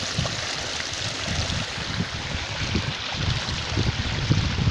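Well water from the pump flowing steadily along an open irrigation channel, with irregular low wind buffeting on the microphone.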